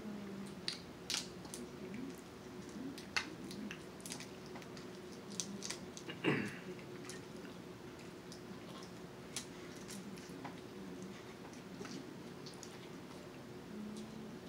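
Close-up eating sounds from a snow crab and shrimp boil: chewing, with scattered sharp clicks and crackles of shells being broken and picked apart. There is one louder thump about six seconds in.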